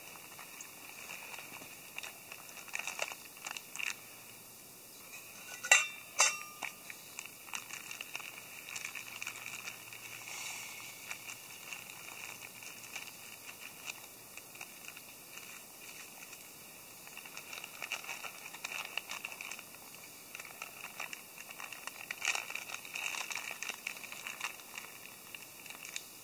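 Small wood fire crackling in a metal backpacking stove, with crinkling as a packet is handled beside it. Fine irregular clicks run throughout, with two sharper snaps about six seconds in.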